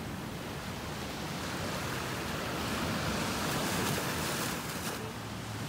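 Ocean waves washing onto the beach, a steady rush that swells slightly midway, with some wind on the microphone.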